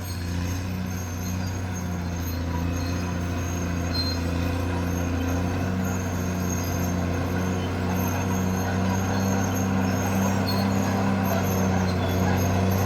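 Caterpillar D6R crawler bulldozer running: a steady low diesel drone with a hum that pulses about twice a second, growing slightly louder toward the end.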